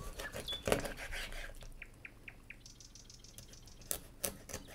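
Kitchen knife cutting through pieces of raw pollock and knocking on a wooden cutting board: a run of sharp knocks in the first second, then two more near the end. A few short, high bird chirps sound in the background.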